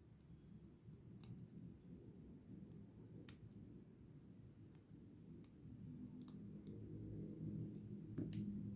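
Light, irregular clicks and taps of small tools and parts being handled while a Casio BGA-152 watch is opened for a battery change, about nine in all, over a faint low hum.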